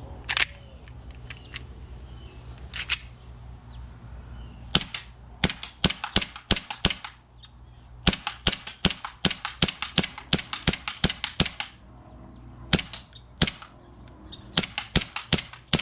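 WE G19 gas blowback airsoft pistol firing in quick semi-automatic strings, about three sharp cracks a second with short pauses between strings. Two single clacks come a few seconds before the shooting starts.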